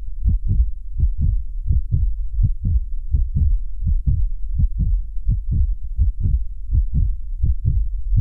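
A steady run of deep heartbeat-like thumps, about three to four a second. The sound is cut in by editing, with no park noise behind it.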